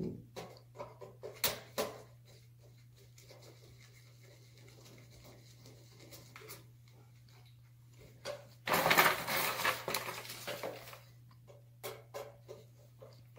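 Hand-tool work on a shower panel's housing: a screwdriver and gloved hands making scattered small clicks and knocks, with a louder burst of handling noise about nine seconds in that lasts a couple of seconds.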